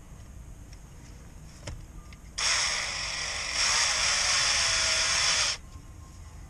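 A heat gun running: a steady hiss that switches on abruptly, gets louder in one step about a second later, and cuts off after about three seconds.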